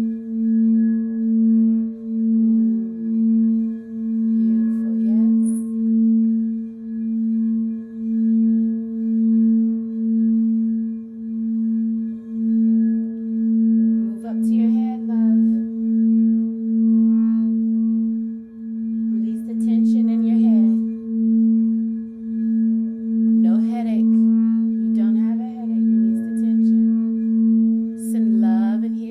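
Singing bowl sounding one sustained low tone with a softer overtone above it, pulsing in a steady wobble about twice a second. Brief sliding, rising and falling tones come and go over it several times.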